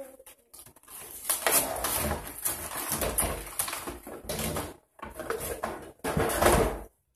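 Cardboard box and plastic packaging rustling and scraping as a plastic toy camper is pulled out of the box. The noise comes and goes irregularly, stopping briefly about five seconds in.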